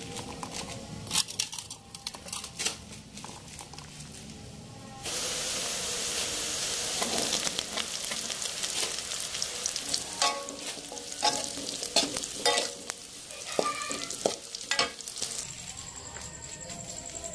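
Pea eggplants and sliced jengkol sizzling in hot oil in a wok, with a metal spatula scraping and tapping as they are stirred. The sizzling starts suddenly about five seconds in, after a quieter stretch with scattered clicks, and eases near the end.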